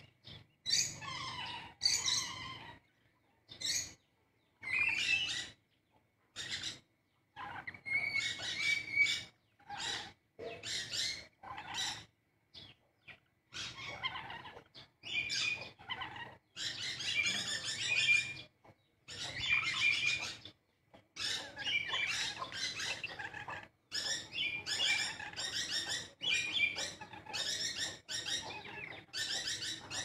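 Small parrots calling in a courting pair: a busy run of short, harsh chattering calls and squawks, one after another with brief gaps.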